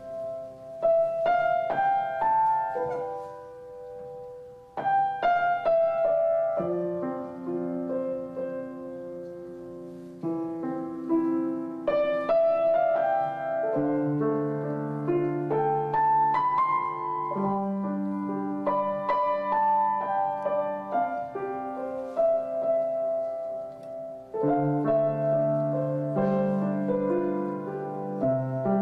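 Piano music: a melody of single notes over held chords.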